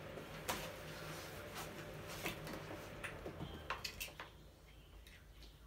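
Scattered light clicks and knocks with cloth rustling as a life-size animatronic figure is handled. It goes quieter after about four seconds, leaving a few faint ticks.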